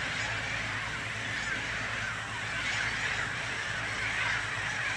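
A flock of seagulls calling together in a steady, dense din, over a low steady hum.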